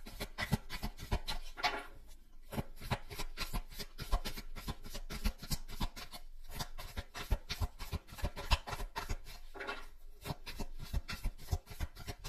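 A deck of tarot cards being shuffled by hand: a dense, irregular run of quick papery flicks and taps, with a couple of longer rubbing swishes.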